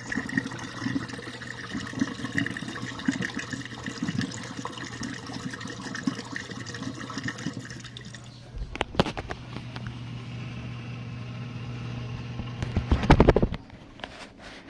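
GE dishwasher between rinses: water sloshing inside the tub over the steady hum of its pump motor, with a few knocks about 9 seconds in. About 13 seconds in comes a loud gurgling rush, typical of the drain pump emptying the sump, and then the hum stops.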